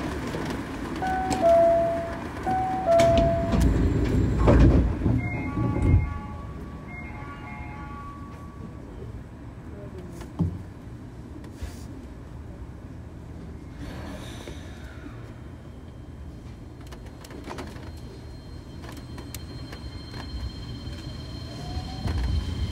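Osaka Monorail 2000 series train heard from inside the car: a short chime melody sounds and the sliding doors close with a thump about six seconds in. The train then runs on with a steady rumble, a thin high whine and a faint rising motor tone near the end.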